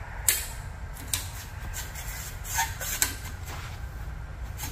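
A 1-inch square aluminium tube being loaded into a tube bender's die and clamp: three sharp metal knocks and a brief scrape as it is seated, over a steady low hum.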